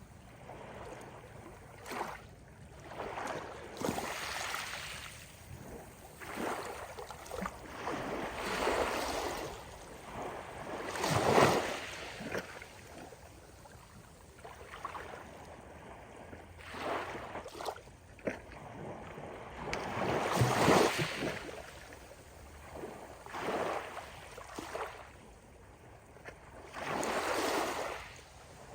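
Gentle ocean waves breaking and washing up the beach, one after another, each rush swelling and fading over a few seconds; two of them are noticeably louder than the rest.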